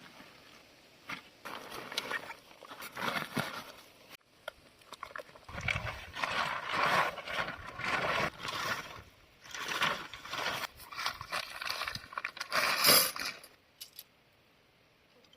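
A series of uneven scraping and rustling noises, strongest in the second half and stopping shortly before the end.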